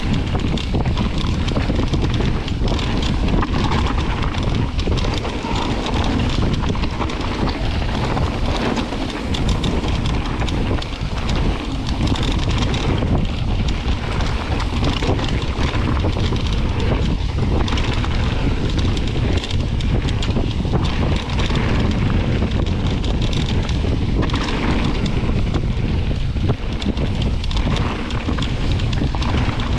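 Wind buffeting an action camera's microphone on a mountain bike riding a dirt trail, with a steady low rumble and the crunch and rattle of knobby tyres over gravel and loose stones.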